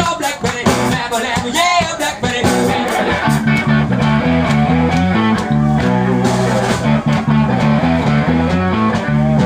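Live blues band playing guitars over a bass line that walks up and down in a steady pattern, with a voice over the first couple of seconds.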